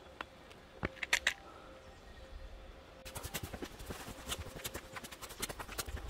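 Sharp clicks and taps on hard ground: a few separate clicks early on, then from about halfway a quick, continuous run of clicking steps.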